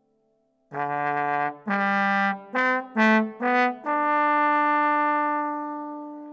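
Trombone playing a phrase of five short, separated notes that climb, then a long held note that slowly fades away.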